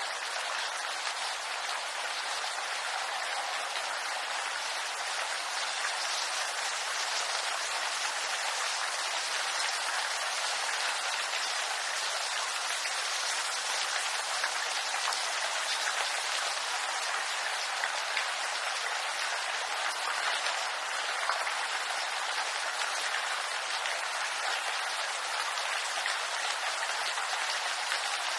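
Steady rain falling, a dense even hiss of many small drops patter on leaves with no let-up.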